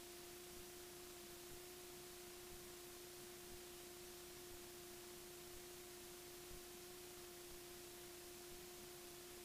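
Near silence: a faint, steady electrical hum over soft hiss, with a slight tick about once a second.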